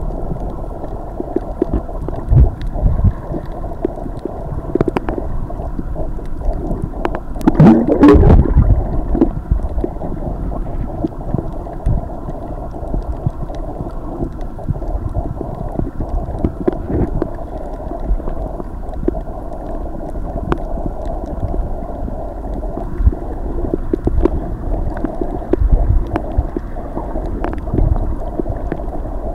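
Muffled water noise picked up by a camera just below the surface: sloshing and gurgling with low rumbling and a steady hum underneath, and a louder splashy burst about eight seconds in.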